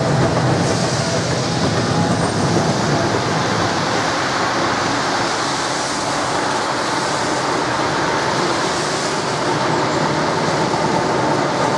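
Historic trams running on street track: a steady rumble of steel wheels on rail. A deep low rumble from a tram close by fades out about a second in, while the wheel-and-rail noise goes on.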